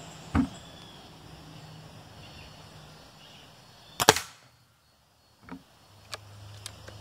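Gamo Big Cat IGT break-barrel air rifle with a 60 kg gas ram firing once, a sharp crack about four seconds in. Before the shot there is a low thud as the cocked barrel is snapped shut, and after it a few light clicks as the barrel is broken open again.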